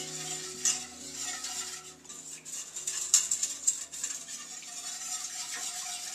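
A wire whisk scraping and clicking against a stainless steel skillet as a milk gravy is whisked, in quick uneven strokes. Faint background music with held notes in the first couple of seconds.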